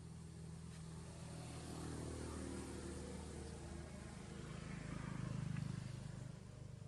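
A motor vehicle's engine passing, a low steady hum that grows louder to a peak about five and a half seconds in and then falls away.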